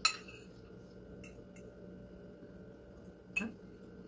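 Metal fork clinking against a plate: one sharp clink right at the start, a few faint taps, and another clink about three and a half seconds in.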